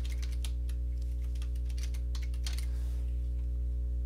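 Typing on a computer keyboard: a quick run of keystrokes that stops about three seconds in. A steady low electrical hum runs underneath.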